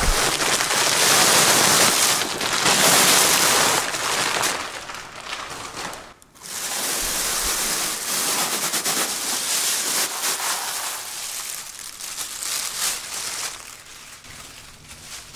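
Caustic soda flakes pouring out of a plastic bag into a plastic barrel: a steady rushing hiss, loudest in the first few seconds, with a brief break about six seconds in, then thinning out toward the end as the bag empties.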